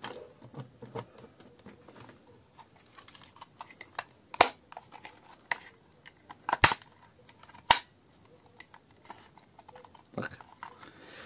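Hard plastic casing parts of a cordless drill battery pack being handled and pressed together, making small clicks and rustles with three sharper clicks in the middle, as the top shell is tried onto the pack without seating.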